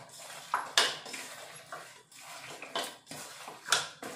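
Chicken pieces being stirred into a wet spice and lemon-juice marinade in a bowl: a soft rustle with a few sharp clinks against the bowl.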